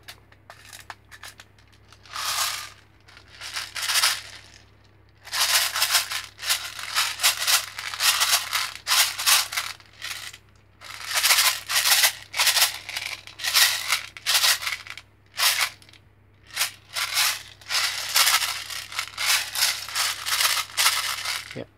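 Airsoft BBs rattling loosely inside a plastic drum magazine as it is shaken and tilted, in repeated bouts with short pauses: a few brief shakes at first, then long runs of rapid rattling. The drum has been modified to hold a full load of BBs and is being tested.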